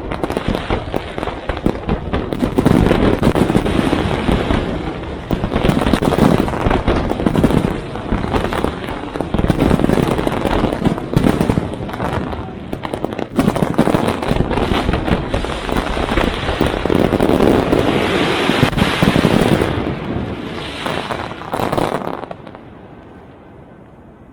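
Fireworks display at full barrage: a dense, continuous run of bangs and crackling bursts, which stops about two seconds before the end.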